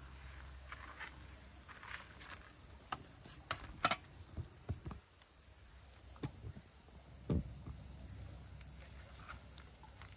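Irregular footsteps and small sharp taps over a faint, steady high-pitched hiss.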